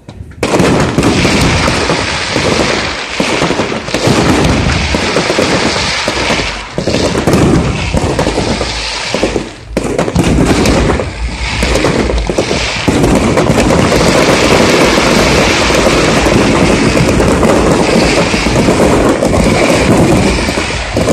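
Fireworks display in a rapid barrage: rockets launching and shells bursting one on top of another with crackling, many bangs a second. It starts abruptly, eases for a moment about halfway, then carries on in an unbroken string of bangs.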